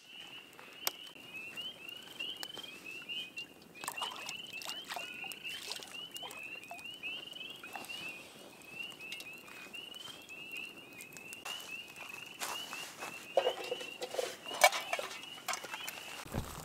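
A night chorus of small frogs: many short, high peeps overlapping in a steady stream, which stops shortly before the end. A few handling knocks and clicks sound over it, about four seconds in and again near the end, the loudest about fifteen seconds in.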